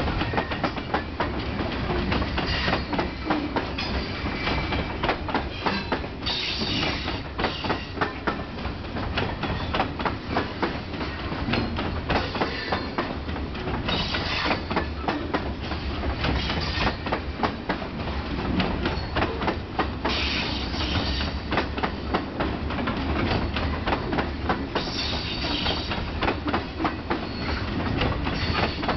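Freight train cars rolling past, their wheels clicking irregularly over rail joints above a steady low rumble. Brief higher-pitched squealing bursts come every few seconds.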